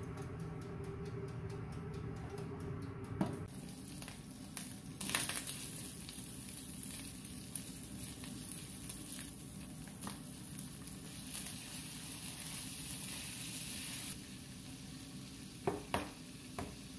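Ground meat sizzling in a frying pan, stirred with a silicone spatula that scrapes and taps the pan now and then, with a few sharper knocks near the end.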